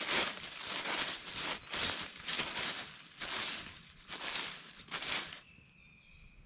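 Dry leaf litter crunching and rustling in irregular short bursts, roughly two a second, under a cat's paws close to the microphone. The crunching stops about five seconds in, leaving a faint steady high tone.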